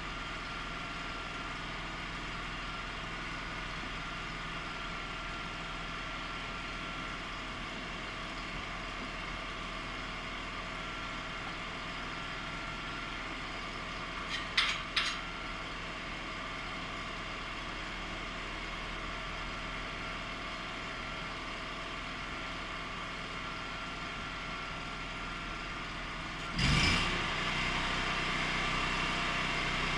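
A steady machine hum, like an idling engine, with two sharp clicks about halfway and a sudden louder burst near the end, after which the hum runs a little louder.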